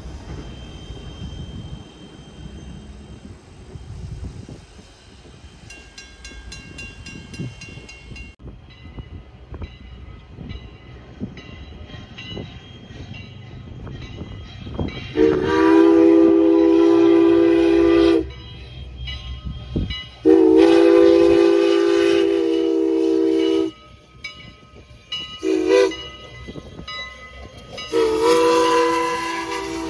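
Canadian National 89, a 2-6-0 steam locomotive, sounding its whistle in four blasts: two long, a short, and a long, the grade-crossing signal. Each blast is a chord of several steady tones. Earlier, its passenger cars roll past with a rumble.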